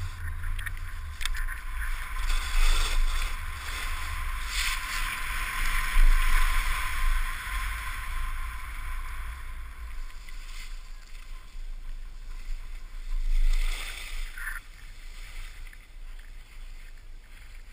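Skis hissing and scraping over packed snow, with wind rumbling on the pole-mounted GoPro's microphone. The noise eases off in the last few seconds as the skier slows down.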